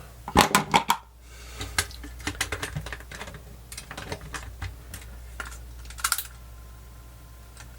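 Quick plastic clicks and knocks of batteries and a Sony WM-FX190 cassette Walkman's casing being handled as the batteries go in. Near the end a faint steady whine sets in as the player starts running.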